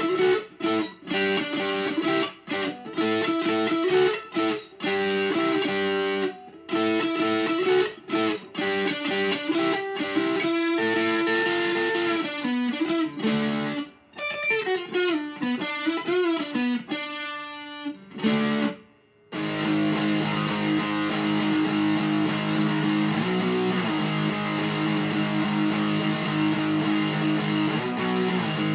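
Electric guitar with big single-coil pickups playing through a miked amp: short, separated lead phrases with string bends, then from about two-thirds of the way through, sustained ringing chords.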